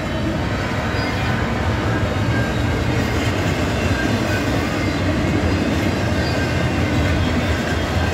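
Double-stacked container cars of a CSX intermodal freight train passing close by, the wheels running steadily over the rails.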